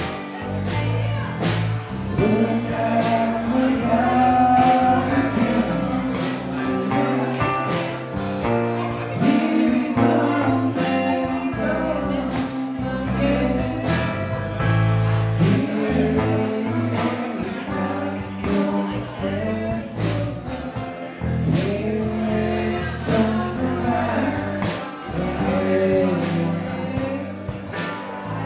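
Live rock band playing: male vocals sung over electric guitars, bass guitar, drums and keyboards.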